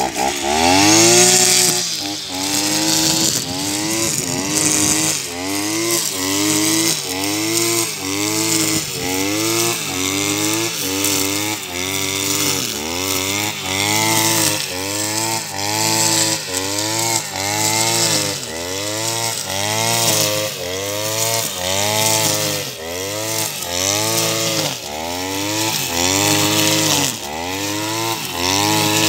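Petrol brush cutter (motorised scythe) engine running hard while mowing grass, its pitch rising and falling about once a second as the cutter is swung back and forth through the growth.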